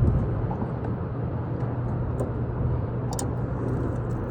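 Boat motor running steadily with a low hum, and a short sharp click about three seconds in.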